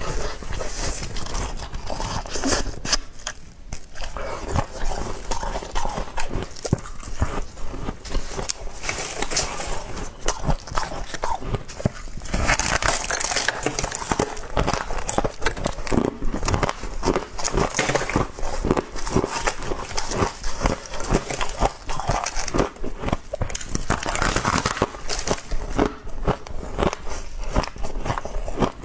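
Close-up chewing and crunching of a mouthful of frost, a steady run of dense, crackly crunches that grows louder about halfway through.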